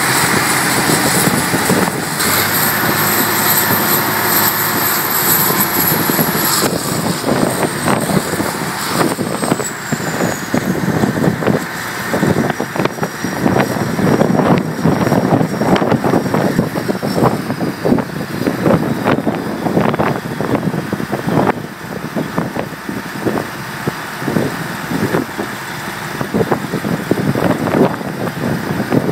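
Heavy engine running loudly at an oilfield workover rig, its rumble uneven and pulsing through most of the stretch.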